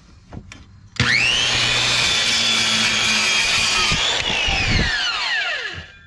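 Black & Decker 7-1/4-inch circular saw starting up with a rising whine about a second in and cutting through a pallet board. A few seconds later it is switched off and spins down with a falling whine.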